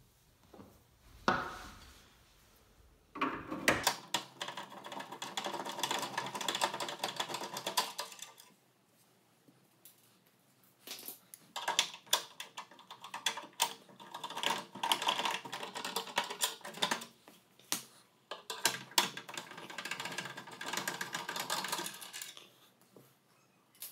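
Hand Phillips screwdriver turning screws out of the exercise bike's plastic cover: dense runs of rapid clicking in several bouts of a few seconds each, with short pauses between them.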